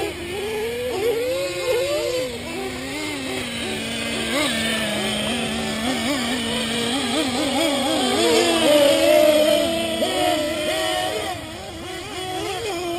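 Small two-stroke engines of several gas-powered RC cars racing, their pitch climbing and dropping as the throttles open and close. One gets louder and higher about eight seconds in, then falls away near eleven seconds.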